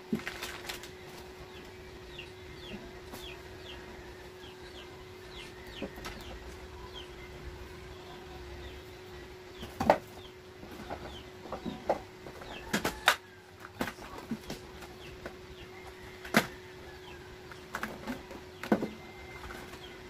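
Groceries being handled and set down: plastic packets rustling and goods such as glass bottles and cans knocking and clinking, several sharp knocks, the loudest about ten seconds in. Under it a steady hum, and faint bird chirps in the background.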